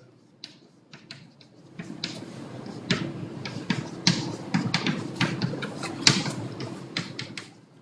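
Chalk writing on a blackboard: an irregular run of quick taps and short scratches, one for each stroke, starting about half a second in and stopping near the end.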